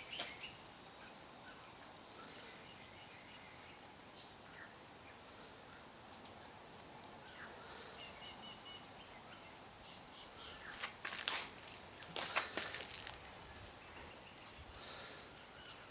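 Outdoor ambience with scattered bird calls over a steady high-pitched whine, broken by a few short bursts of crackling clicks about eleven to thirteen seconds in.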